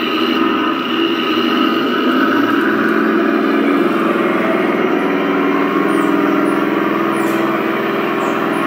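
Radio-controlled Leopard 2A4 model tank driving, with a steady, loud engine-like drone and a higher whine from the model's motors and sound unit.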